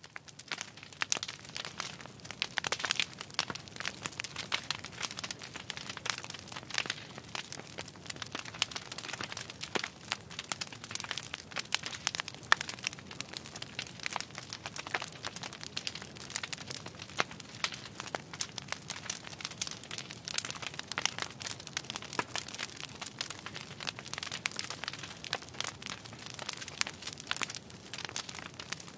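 Wood fire crackling: dense, irregular pops and snaps of burning logs over a steady hiss.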